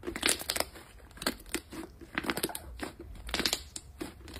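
Pink slime being stretched and squeezed by hand, giving a run of irregular crackles and clicks.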